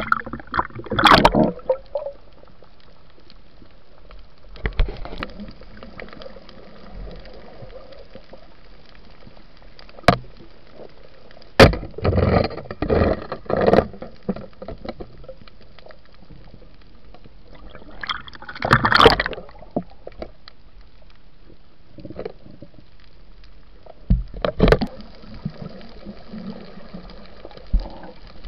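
Water sounds picked up by a camera underwater: a steady low hiss broken by irregular bursts of bubbling and splashing, loudest near the start, in the middle and about two-thirds of the way through, with a couple of sharp knocks.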